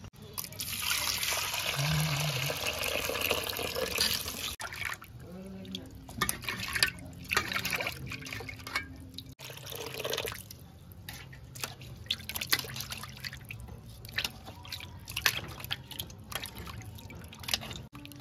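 Water poured into an aluminium bowl of small fish, then splashing and dripping as hands swish and rub the fish to rinse off the salt and slime.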